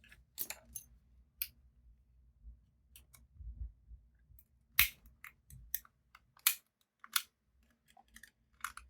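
Irregular sharp clicks, snaps and light scraping as the internals of an iPod Mini are pried out of its aluminium shell with a small tool, the loudest snap about five seconds in.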